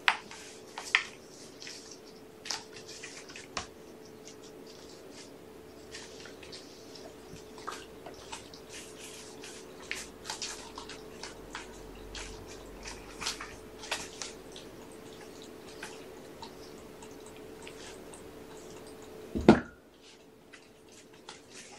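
Kittens playing on a carpeted floor: scattered light clicks, taps and rustles over a steady low hum. A loud thump comes near the end, and the hum stops right after it.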